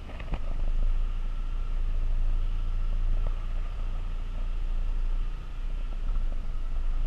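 Pickup truck driving, heard from inside the cab: a steady low engine and road rumble with a faint steady whine above it, and a couple of light clicks at the start.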